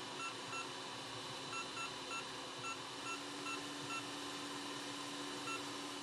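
Steady hiss of a hot air rework station blowing on the board. About ten short, high electronic beeps come at uneven intervals, most of them in the first four seconds and one more near the end.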